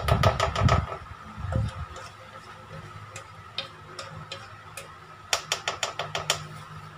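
Spatula scraping and clicking against a mixing bowl as cake batter is scraped out into the pan: a quick run of clicks at the start, scattered single ticks, then a fast rattle of taps about five seconds in.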